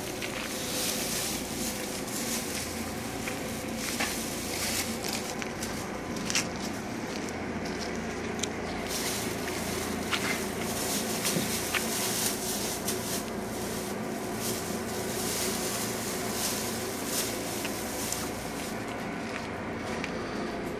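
Large plastic-wrapped bales being handled and loaded, with plastic crinkling and rustling and a few sharp knocks, over a steady mechanical hum.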